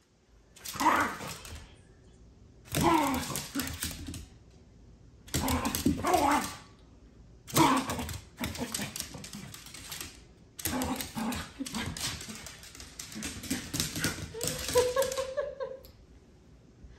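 Small dog's gruff play-growling and grumbling in repeated bursts, running almost continuously in the second half, with a drawn-out whine near the end. Claws click on the hardwood floor between and under the growls.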